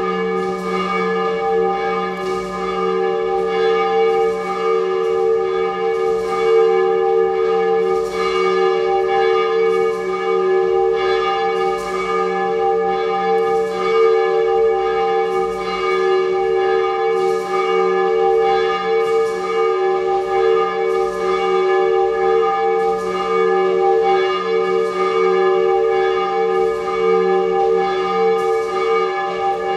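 Church bell ringing steadily, struck about once a second, its tone ringing on between strokes.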